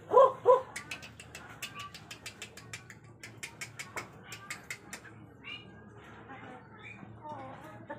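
Chickens pecking grain from a plastic tub: a quick run of sharp taps, about four or five a second, after two short loud calls at the start, with softer calls near the end.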